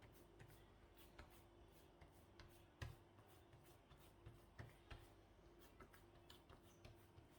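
Near silence with faint, irregular small clicks and taps, a few a second, over a low steady hum; one tap about three seconds in is a little louder.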